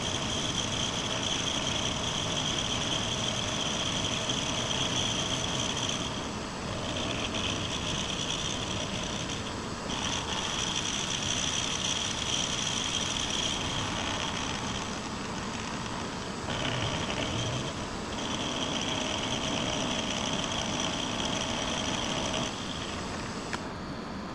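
Precision Matthews PM-25MV benchtop milling machine running, its cutter milling the edge of a metal workpiece to square it up. A steady machine hum with a high whine that changes every few seconds as the cut goes on, easing off near the end.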